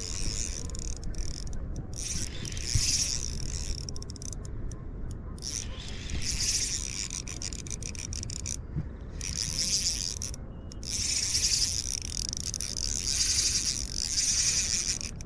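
Spinning reel being cranked in repeated spurts of one to two seconds, a fast ticking whir from its gears, as a hooked fish that is fighting is reeled in. Low wind rumble runs underneath.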